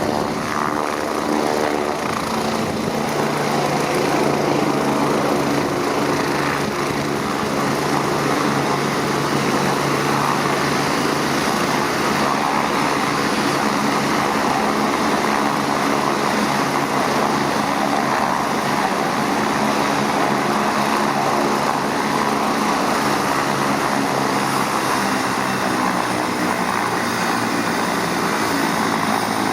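MBB Bo 105 LS A-3 helicopter running steadily, its twin turboshaft engines and rotors giving an even whine and hum that holds the same level throughout.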